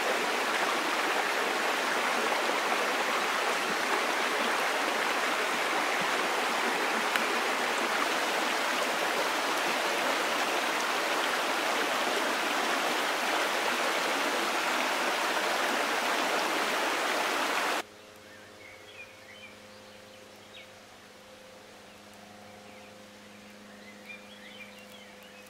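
Small forest stream rushing over rocks, a loud, steady rush of water. About two-thirds of the way through it cuts off sharply, leaving a much quieter background with a low steady hum and faint scattered clicks.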